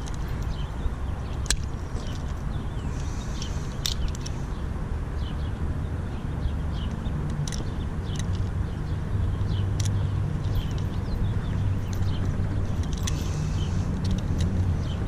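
Locking pliers and steel chain clicking and clinking a few times as a cut link of a tire chain is squeezed shut, over a steady low rumble.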